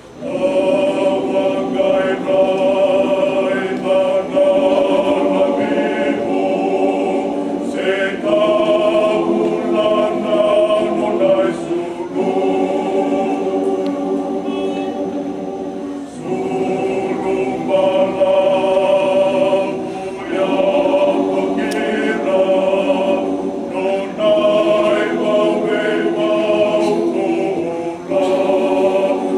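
Mixed men's and women's church choir singing a Fijian hymn in harmony, in phrases a few seconds long with brief breaks between them.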